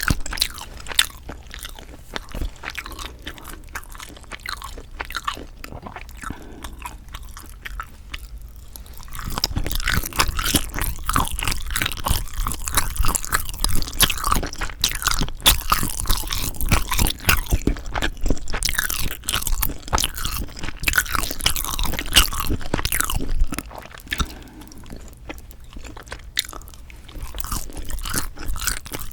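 Close-miked mouth sounds of someone chewing sundae (Korean blood sausage), with dense clicking. The chewing is quieter at first, grows louder about a third of the way in, and eases off again near the end.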